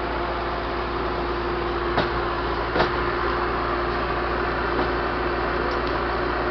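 LKT 81 T turbo diesel forestry skidder's engine running steadily, with a constant hum and low rumble. Two short knocks about two seconds in and just before three seconds.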